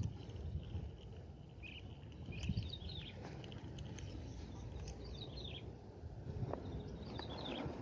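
Small birds chirping in short, scattered calls over a steady low rumble of strong wind buffeting the microphone.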